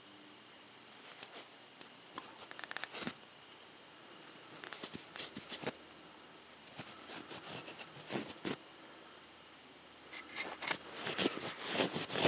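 A lead-removal cloth rubbed in short scrubbing strokes across the front face of a stainless steel revolver cylinder, wiping off carbon fouling: scratchy rubbing in several bouts, busiest near the end.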